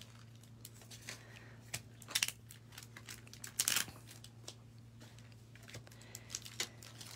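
Scattered light clicks, knocks and rustles of items and packaging being handled and set down on a tabletop, the loudest about two and three and a half seconds in, over a faint steady low hum.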